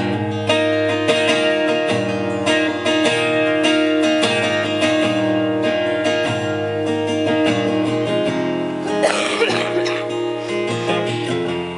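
Acoustic guitar playing an instrumental passage between verses: chords strummed and picked in a steady rhythm, the notes ringing on.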